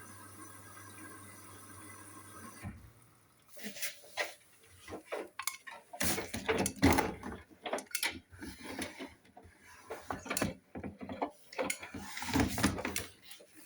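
Hoover washing machine's water inlet fill with a steady hum, cutting off abruptly about three seconds in, followed by irregular clattering and knocks.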